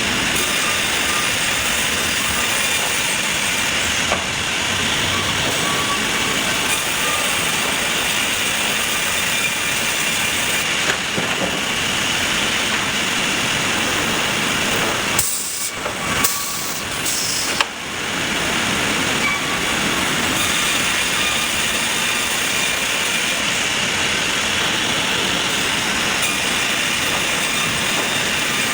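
Sawmill machinery running with a steady, loud mechanical noise, briefly broken by a few short gaps and clicks about fifteen to eighteen seconds in.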